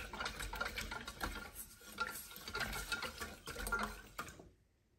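Metal spoon stirring a milk mixture in a stainless steel pot, clinking and scraping against the pot's sides and base in quick irregular ticks, with a light slosh of liquid. It stops abruptly near the end.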